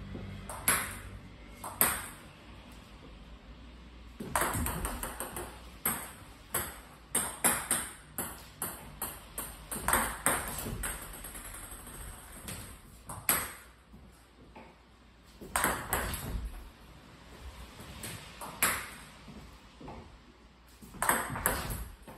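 Table tennis ball clicking: a paddle striking the ball on serves and the ball bouncing on the table, a run of sharp clicks in quick groups of two or three every second or two.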